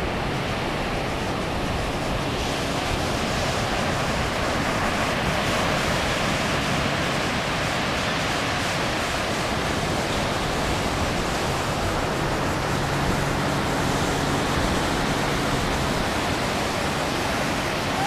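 Ocean surf breaking along the beach, heard as a steady, even rushing wash.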